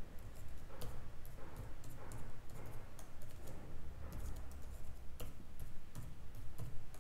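Computer keyboard being typed on: a run of irregularly spaced key clicks.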